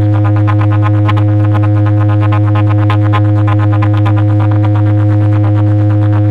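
Electronic DJ sound-check music: a loud, unbroken synthesizer bass drone held on one low note, with a fast ticking rhythm running over it.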